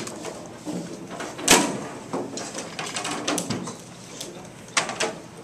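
Students pulling whiteboards and markers out from under classroom desks: irregular clatter and rustling, with a sharp knock about one and a half seconds in and another near the end.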